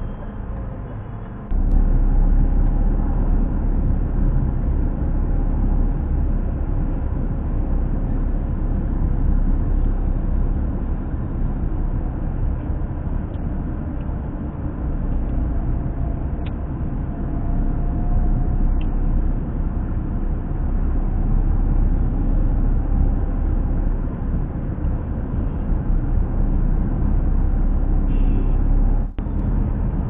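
Steady low rumble of outdoor traffic and wind noise picked up by an action camera's built-in microphone. It sets in abruptly about a second and a half in and cuts out briefly near the end.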